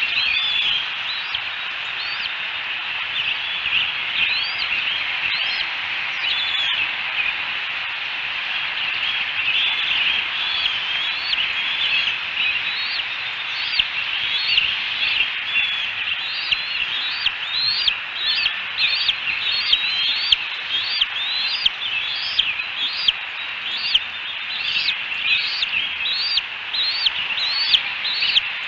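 Bald eaglet chicks peeping for food, a thin high chirp repeated over and over. The chirps come more regularly and louder in the second half, about two a second.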